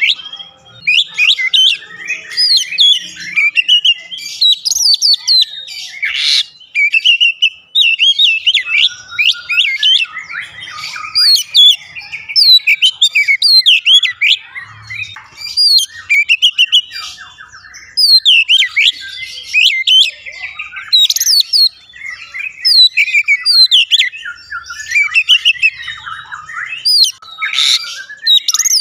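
Oriental magpie-robin (kacer) singing a long, rapid run of varied whistles and chirps in phrases, with brief pauses between them.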